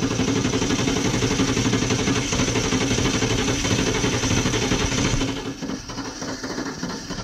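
1994 Chevrolet Camaro Z28's V8 running just after starting, with the air filter off and a hand held over the open intake. About five seconds in the sound drops and turns uneven.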